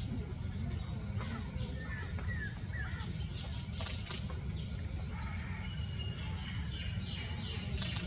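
Small wild birds calling in the background: many short chirps and quick high downward-sweeping notes, over a steady low rumble.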